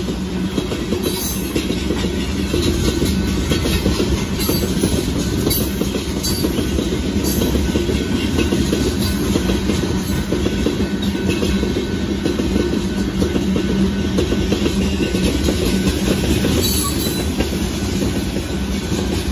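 Loaded limestone hopper cars of a freight train rolling steadily past at close range: a continuous rumble of steel wheels on rail, with clicking as the wheels cross rail joints.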